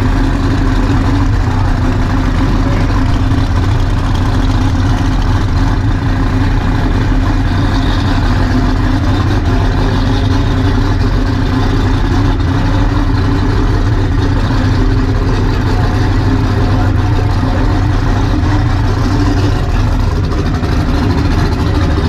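Drag race car engine idling steadily, a deep, loud, unchanging rumble with no revving.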